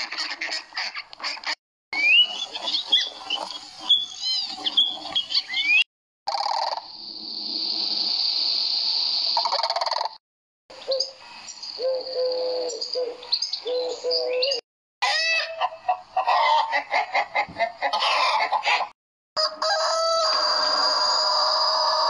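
A run of separate bird-call recordings, each a few seconds long with brief silent breaks between them. A white domestic duck quacks at the start, doves coo in repeated low notes around the middle, and a rooster crows in one long held call near the end, with other bird calls in between.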